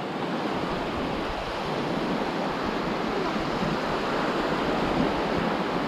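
Small surf waves breaking and washing up a sandy beach: a steady rushing wash.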